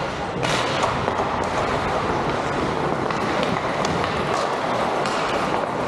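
Ice hockey game sounds echoing in a rink: a steady wash of noise with a few sharp knocks scattered through it.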